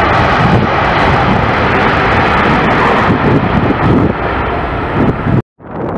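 Boeing 787 jet engines at high power during a takeoff roll: a loud, steady jet roar. It cuts off abruptly about five and a half seconds in, and wind buffeting the microphone follows.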